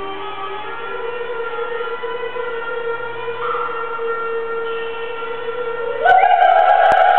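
Dance music played back: long held melody notes over a steady low drone, stepping up in pitch, then louder and higher about six seconds in.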